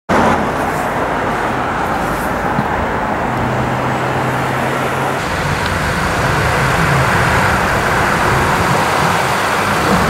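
Road traffic noise: a steady rush of vehicles on the street, with a low engine hum for a couple of seconds near the middle.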